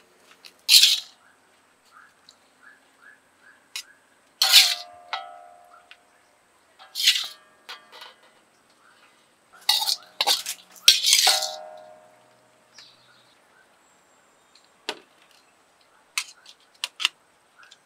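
Metal spatula scraping and knocking against a steel wok and a stainless steel plate as stir-fried vegetables are scooped out: four bouts of sharp metal clanks, each ringing briefly, the loudest pair about ten and eleven seconds in, with small clinks in between.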